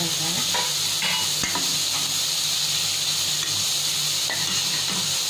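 Sliced onion, capsicum and grated carrot sizzling steadily in hot oil in a pan, with a spatula stirring and scraping them around.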